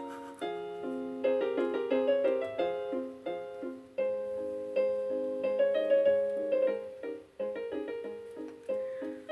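Piano music: a melody of single struck notes and chords, each note fading after it is played.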